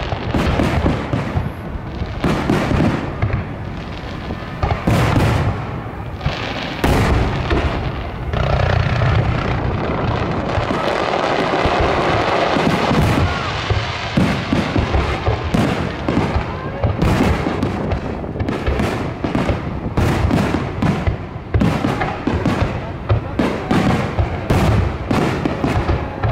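Aerial firework shells bursting overhead in quick succession, a dense series of booms and bangs with little pause between them.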